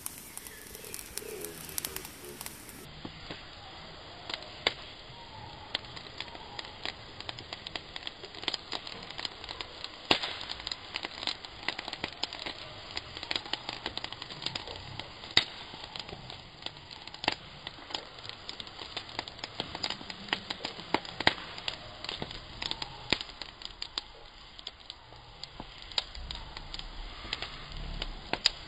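Open wood fire crackling, with irregular sharp pops and snaps, some much louder than the rest.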